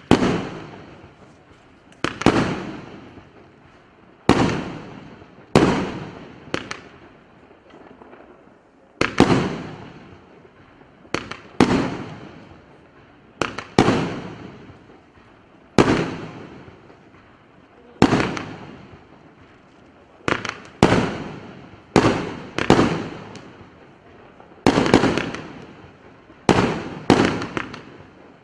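A 100-shot, 30 mm consumer fireworks cake firing: shells bursting in the air one after another, about every one to two seconds and sometimes in quick pairs, each bang trailing off.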